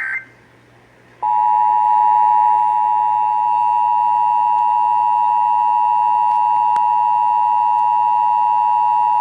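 The last instant of a SAME digital header's warbling data tones, then a short lull. About a second in comes the Emergency Alert System two-tone attention signal, 853 and 960 Hz sounded together, which holds loud and steady. It is the signal that an emergency alert or test message is about to be read.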